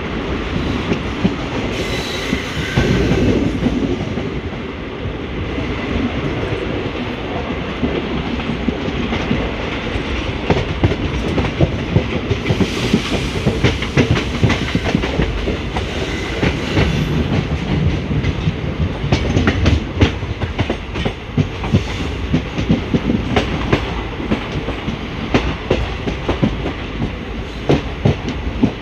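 Indian Railways ICF passenger coach rolling at speed: a steady rumble with the wheels clicking over rail joints. The clicks come thicker and sharper in the second half.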